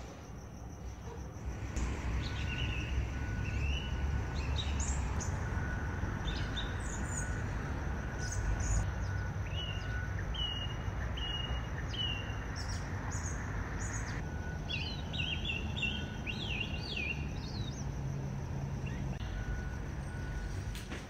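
Outdoor ambience: small birds chirping in short calls and quick runs, over a steady low background rumble.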